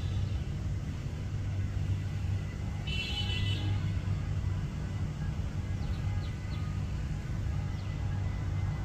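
Steady low outdoor rumble, like distant traffic. About three seconds in comes a brief high-pitched call, and a few faint short bird chirps follow later.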